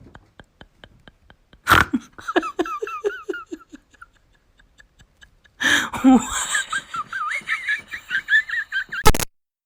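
People laughing in two bursts. A run of high-pitched giggles starts about two seconds in, and after a sudden cut comes louder laughter with wavering squeals that stops abruptly near the end.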